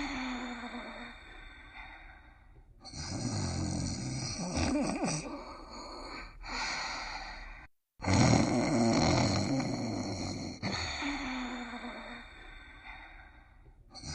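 Cartoon dog snoring in a slow, even rhythm, one long snore about every three seconds, with a brief cut to silence about halfway through.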